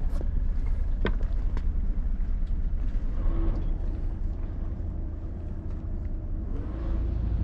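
Sailing yacht's engine running as a steady low rumble while the boat motors out, growing louder near the end, with one sharp click about a second in.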